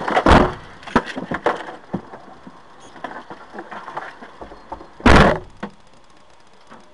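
A few short knocks and bumps, then one heavy thump about five seconds in, the loudest sound.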